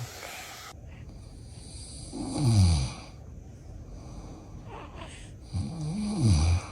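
A man snoring: two loud snores, about two seconds and five and a half seconds in, each with a tone that slides down in pitch.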